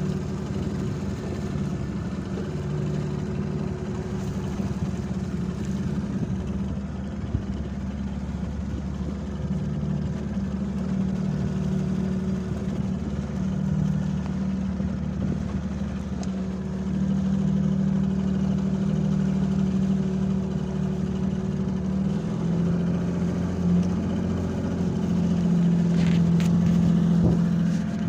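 Fishing boat's engine running steadily, its pitch shifting slightly a little past halfway through.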